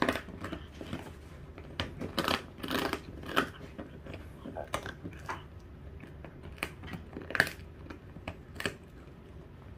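A dachshund chewing a lamb spine bone: irregular sharp cracks and crunches as its teeth break into the bone, with the loudest crack about three quarters of the way through.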